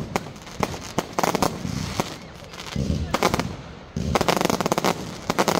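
Fireworks going off in rapid strings of sharp bangs and crackles, coming in several volleys with short lulls between.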